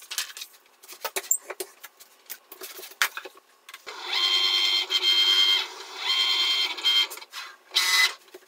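Light clicks and rustles of a flex sheet and cutting mat being handled, then the motor of a Cricut Maker cutting machine whining steadily as its rollers draw the mat in: a stretch of about a second and a half, a pause, about a second more, and a short burst near the end.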